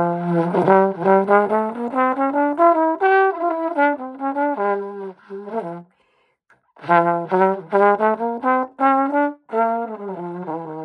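Solo trombone playing a melody of short, separate notes in two phrases, with a pause of about a second between them.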